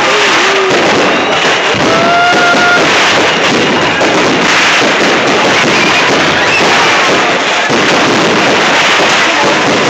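Fireworks display: a dense, continuous barrage of bangs and crackling from many shells bursting in quick succession.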